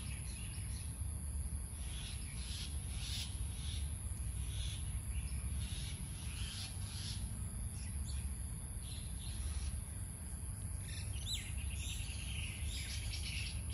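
Outdoor ambience of birds chirping and insects buzzing over a steady low rumble, with a bird's sliding calls and a quick trill near the end.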